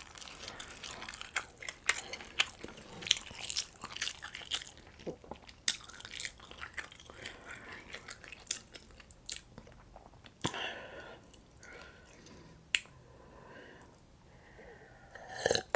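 A person chewing and biting food close to the microphone, with many sharp, crisp clicks for about the first ten seconds, then quieter chewing.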